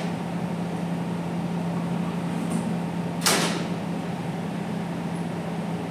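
Steady low hum, with one short sharp noise about three seconds in as an outside micrometer is handled and tightened on a steel shaft.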